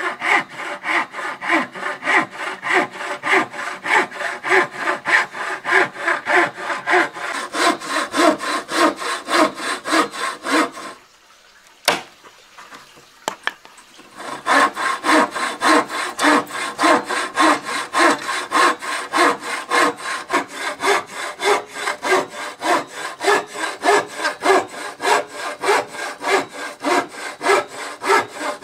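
Hand frame saw cutting through a weathered wooden board with fast, even back-and-forth strokes, about three a second. The strokes stop for a few seconds about eleven seconds in, with a single click in the gap, then start again.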